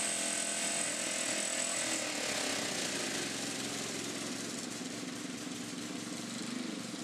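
Racing lawn mower's small engine running steadily, with a thin high whine that stops about two seconds in.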